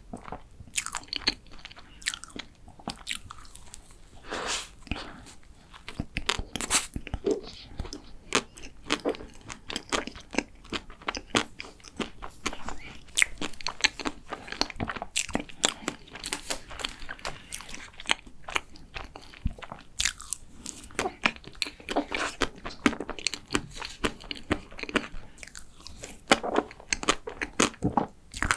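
Close-miked eating sounds: a chocolate macaron being bitten and chewed, with many small irregular crunches and crackles from the shell and wet chewing throughout.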